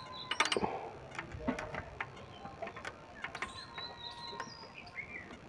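Light metallic clicks and taps of a spanner working the rocker-arm adjusting screw and lock nut during a valve tappet clearance adjustment on a diesel tractor engine. A quick cluster of clicks comes about half a second in, then scattered lighter ticks.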